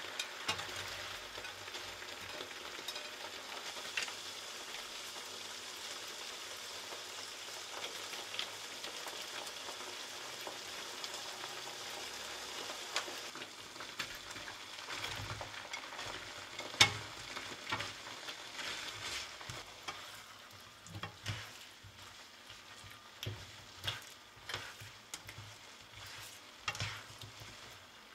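Diced chicken sizzling steadily in melted butter in a non-stick wok. From about halfway the sizzle is quieter, and a spatula knocks and scrapes against the pan as potato chunks are stirred into the sauce.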